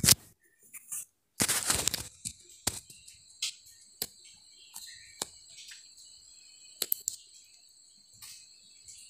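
Thick fish curry gravy bubbling and spattering in a pan as it is reduced, with sharp pops at irregular intervals. A steady high-pitched chirring runs underneath.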